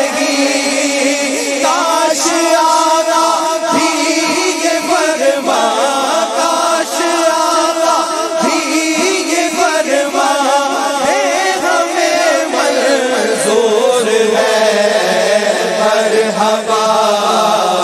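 Men's voices chanting a devotional refrain together in long, drawn-out sung phrases, with no instruments to be heard.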